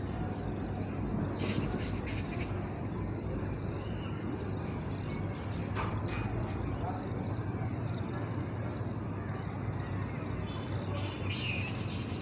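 Sewing machine running at a steady low hum as it topstitches fabric, with high chirping repeating about twice a second over it.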